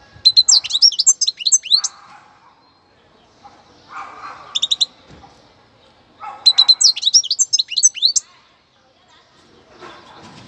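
A young European goldfinch singing bouts of fast, high twittering song: a long phrase at the start, a short burst about four and a half seconds in, and another long phrase about six seconds in.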